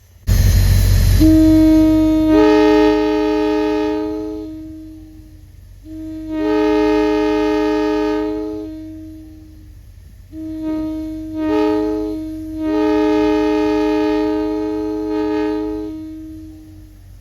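Locomotive multi-chime air horn blown on compressed air: a rush of air, then three long chord blasts with the notes coming in one after another. The third blast stutters once before it holds.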